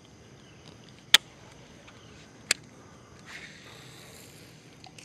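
Baitcasting reel clicking twice, about a second and a half apart, during a cast, then a brief soft hiss. Crickets chirr steadily throughout.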